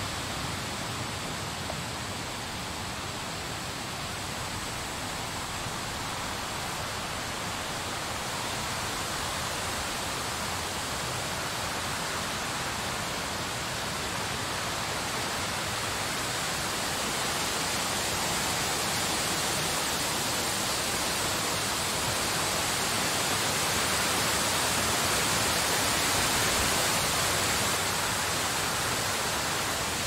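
Blizzard wind blowing steadily as an even rushing hiss, swelling a little past the middle and easing slightly near the end.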